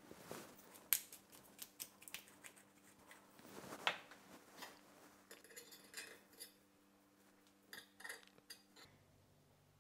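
A metal fork clinking and scraping on a ceramic plate while twirling spaghetti: scattered small taps, a run of quick light ticks in the middle, and a few sharper clinks.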